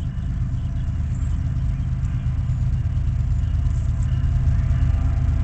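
Low, steady diesel engine rumble that slowly grows louder: the approaching BNSF train's two GE ES44AC locomotives.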